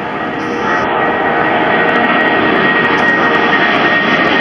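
Jet engines of a four-engined British Airways Boeing 747 climbing out overhead after takeoff. The engine noise grows louder over the first second or so and then holds steady, with a faint high whine running through it.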